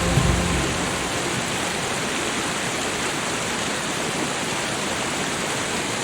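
Steady rushing noise of water, like heavy rain or a stream, with no change in level.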